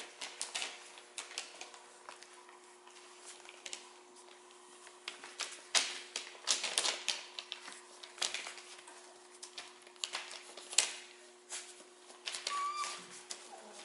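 Newspaper crinkling and rustling under the paws of five-week-old Goldendoodle puppies as they scramble and play on it, in irregular crackles and scratches, over a faint steady hum.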